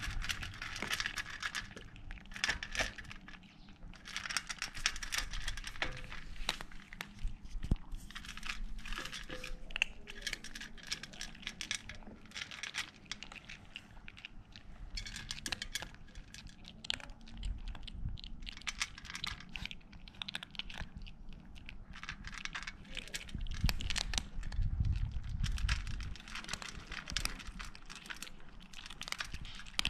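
Kittens crunching dry kibble off an enamel plate close up: a dense, irregular run of small crisp crunches and clicks. A low rumble swells briefly a little after two-thirds of the way through.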